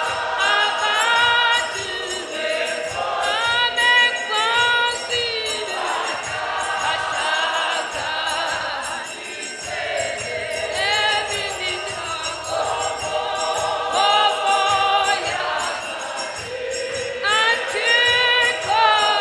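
Large church congregation singing a Xhosa hymn in harmony, with small handbells shaken in rhythm as the only accompaniment.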